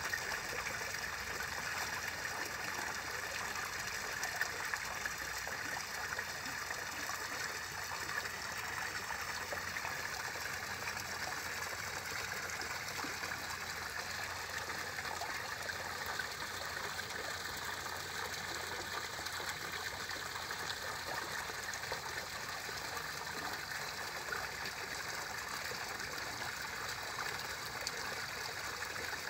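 Steady trickle of running water into a garden pond.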